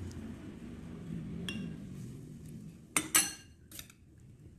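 Utensil clinking against a bowl while carrot is added to the fish-sauce dipping sauce: one light clink about a second and a half in, then two loud clinks in quick succession with a brief ring around three seconds in, and a smaller one just after.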